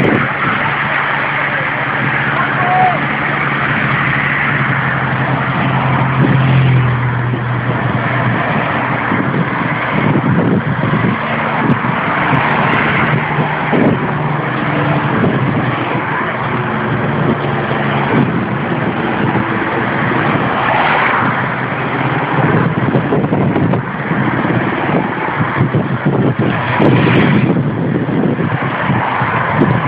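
Race convoy cars following a cycling peloton and driving past one after another, engines running and tyres on the road, over a steady noisy wash, with people's voices mixed in.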